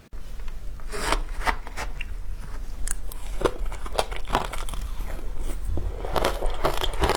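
Frozen matcha ice being bitten and crunched by mouth, a string of irregular crisp crunches.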